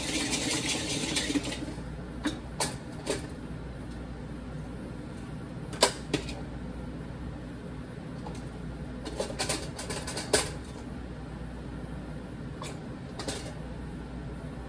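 Stovetop crank popcorn popper heating kernels: a dense rattle of the stirring crank for the first second and a half, then scattered sharp pops, about a dozen at irregular intervals, as the first kernels burst.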